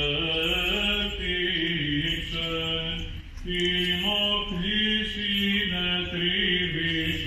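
Byzantine liturgical chant sung by a male voice in long held, ornamented phrases, with a short pause for breath about three seconds in.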